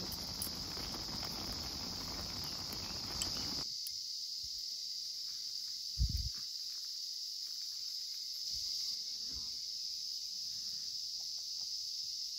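A chorus of cicadas keeps up one steady high-pitched drone. A soft rushing noise underneath cuts off suddenly a few seconds in, and about six seconds in there is a single short knock of metal chopsticks against the aluminium pot.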